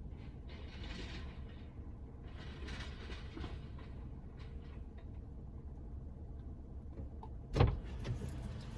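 Low, steady rumble inside a car's cabin as the car moves or idles. Two soft hissing swells come in the first few seconds, and a sharp thump sounds near the end.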